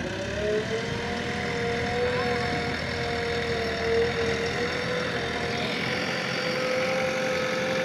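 Diesel engine of a JCB 3DX backhoe loader running steadily, its pitch rising a little in the first second and then holding even.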